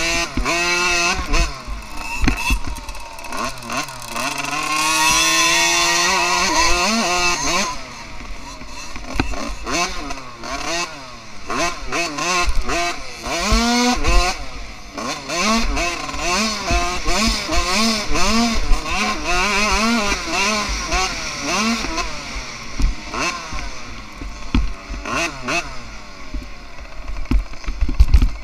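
A 2013 KTM 50 SX mini motocross bike's small two-stroke engine, heard from on board, revving hard and repeatedly as the throttle is opened and closed, its pitch rising and falling with each burst. There is a long climbing rev about four to seven seconds in, then a quick run of short revs.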